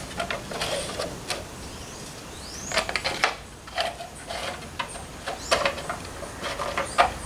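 A short slit section of white PVC pipe knocking and scraping against clay roof tiles as it is pushed onto the tile edge, in scattered irregular clicks and knocks.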